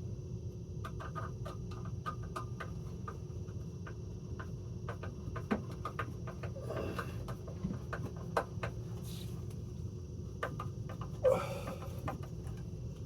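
Scattered small clicks and knocks of hands working a plastic fire alarm horn strobe, its mounting bracket and wiring, over a steady low rumble. A few of the knocks are louder.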